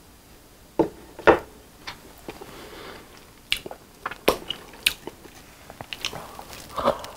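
Close-miked wet mouth sounds while eating: a series of sharp, irregular lip smacks and tongue clicks, the loudest about a second in.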